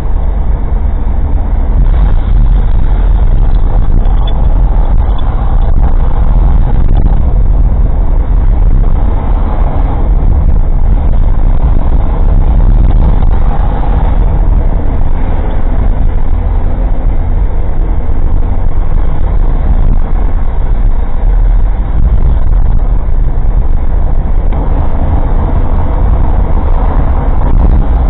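Engine and road noise of an old kei car heard from inside the cabin: a steady, loud low rumble while driving.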